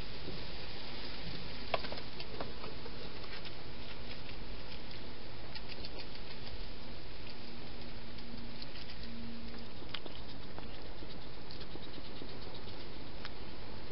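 A wild hedgehog feeding and moving about at a feeding station: faint scattered clicks and patters over a steady hiss.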